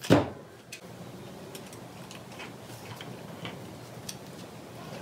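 A sharp knock right at the start, then scattered faint clicks and ticks of a tiny screwdriver and small metal parts being worked at a valve bore in an overdrive unit's housing.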